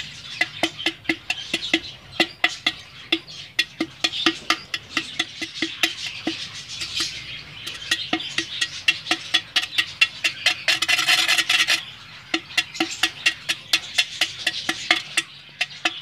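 Iron rod tapping quickly against the rim of a hole in a terracotta clay pot (matki), chipping away the earthenware to widen and smooth the hole. The sharp taps come steadily, about four or five a second.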